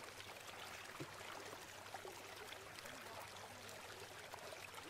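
Floodwater running, a faint steady wash.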